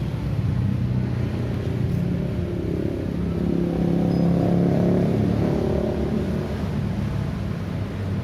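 Street traffic: motor vehicle engines running steadily, with one vehicle's engine growing louder as it passes close, loudest about halfway through.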